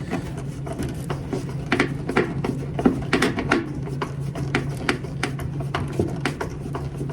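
Irregular clicks and clinks of a hand wrench or socket working on the dryer's sheet-metal and pulley hardware, over a steady low hum.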